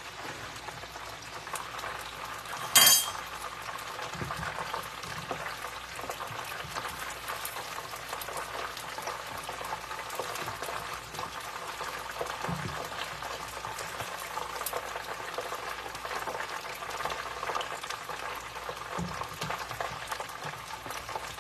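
Chicken wings deep-frying in a pot of hot oil: a steady bubbling crackle. One sharp, loud click sounds about three seconds in, and near the end a metal skimmer stirs through the oil, lifting wings out.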